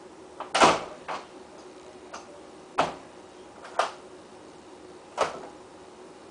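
Six or seven separate sharp knocks or clicks at irregular intervals, the loudest about half a second in, over a faint steady hum.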